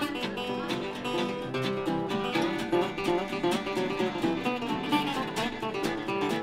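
Western swing played on an acoustic rhythm guitar, a National resonator guitar and a fiddle: an instrumental passage with a steady strummed beat.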